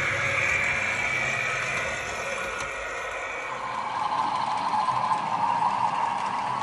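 OO gauge model diesel locomotive running on the layout's track, giving a steady motor and wheel running noise. The pitch shifts lower about three and a half seconds in.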